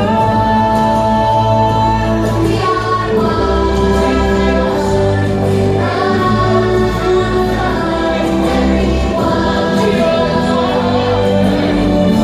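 The show's soundtrack: a choir singing long held chords over orchestral music with a deep bass, the chords changing every couple of seconds.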